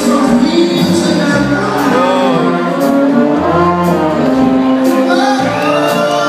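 A live band plays with a male lead singer, heard from the audience in a large concert hall: a stepping bass line, a sung melody, and regular cymbal hits.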